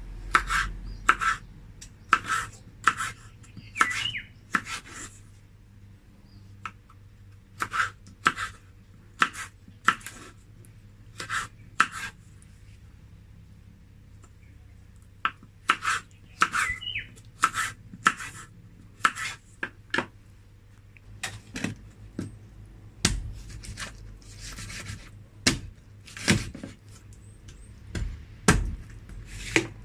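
Kitchen knife chopping food on a cutting board: runs of sharp strokes about two a second, broken by short pauses, with heavier thuds in the last third.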